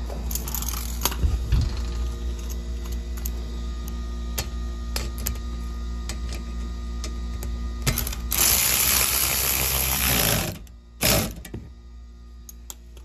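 Bolts being fastened into a car's fabric engine undertray: scattered clicks of the socket and tool against the panel, then a power driver runs hard for about two seconds, stops, and gives one short second burst, snugging the bolt down.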